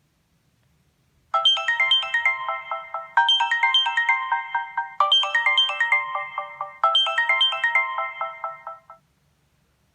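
Samsung Star 2 (GT-S5260) ringtone: a melody of quick short notes, one phrase played four times over, starting about a second in and stopping abruptly near the end.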